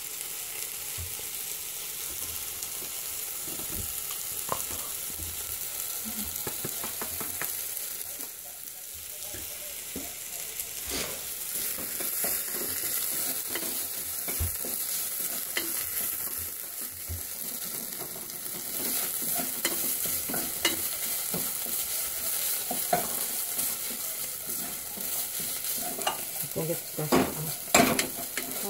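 Food sizzling in a frying pan while a spatula stirs and scrapes through it. Scattered knocks of the utensil against the pan come most often near the end.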